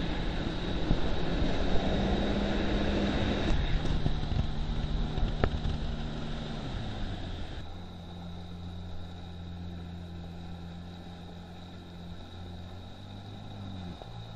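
Motorboat engine running at speed over rushing water and spray. About seven seconds in, the engine note falls as the throttle is eased back, and it runs on lower and quieter. It drops again near the end.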